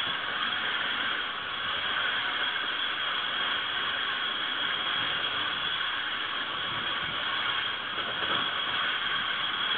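Steady rolling noise of a moving passenger train, heard from on board: wheels on the rails and rushing air, with a thin, steady high tone above it.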